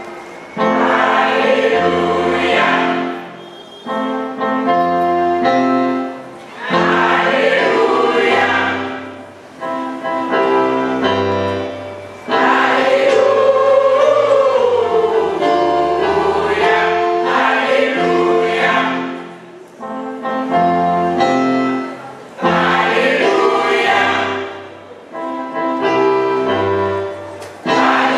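Church choir singing with electronic keyboard accompaniment, in phrases of a few seconds with short breaks between them, over steady bass notes that change in steps.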